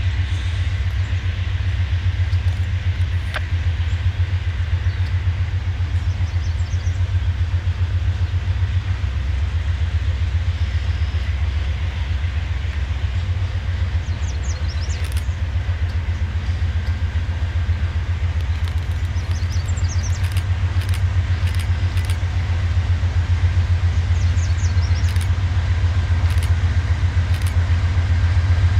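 Diesel freight locomotives running with a steady low rumble as the train approaches slowly, growing a little louder in the last few seconds.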